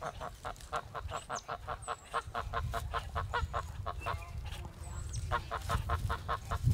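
Sebastopol geese honking in a rapid run of short calls, about five a second, breaking off briefly a little after four seconds in and then starting up again.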